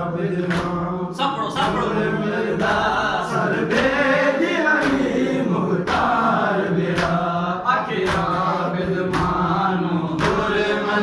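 A group of men chanting a Shia noha (lament) in unison, with hands slapping on chests in a steady beat about once a second: matam, the ritual chest-beating of mourning for Imam Hussain.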